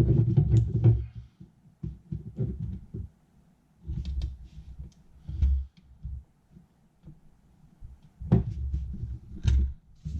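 Handling noise: irregular low thumps and rubbing, with a few sharp clicks, as wires and tools are handled.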